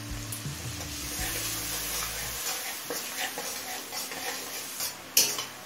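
A spice paste of turmeric, cumin and chilli powder, just wetted with water, sizzling in hot mustard oil in an aluminium kadai while a spatula stirs and scrapes it around the pan. There is a sharp knock about five seconds in.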